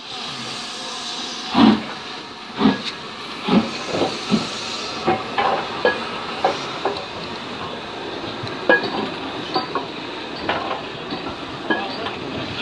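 Steam train on the move: heavy beats over a steady hiss, about one a second at first, then coming quicker and less regularly as it gathers speed.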